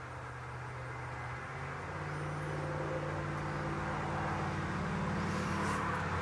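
A motor vehicle's engine hum that grows steadily louder, its pitch stepping up about two seconds in, as of a car or truck passing on a nearby road. A bird chirps briefly in the middle.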